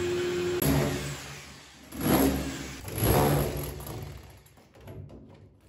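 Corded drill with a core bit boring into a plastered foam-block wall. The motor runs steadily at first, then comes in two short spells about a second apart and fades out near the end.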